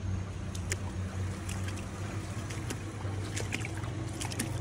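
Footsteps wading through shin-deep floodwater in a street, the water sloshing and splashing irregularly with each step, over a steady low hum.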